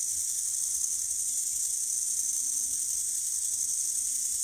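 Small DC motor of a little 3D-printed robot running steadily: an even, high whirring hiss with a faint low hum beneath it.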